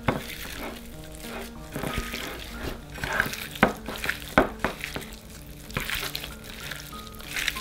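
Raw pork cubes wet with rice wine being squeezed and kneaded by a gloved hand in an enamel dish: irregular wet squelches and smacks, the sharpest about three and a half and four and a half seconds in.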